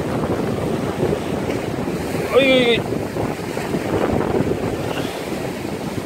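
Heavy surf washing over shore rocks and strong wind buffeting the microphone, a steady rushing roar. A brief high-pitched sound cuts in about two and a half seconds in.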